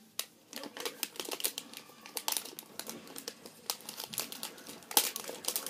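Gift wrapping paper being torn and crumpled by hand: a run of irregular crackles and rips, the loudest about five seconds in.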